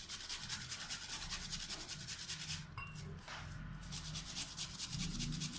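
White turnip being grated on a fine hand grater: rapid, even scraping strokes, with two short breaks a little past halfway.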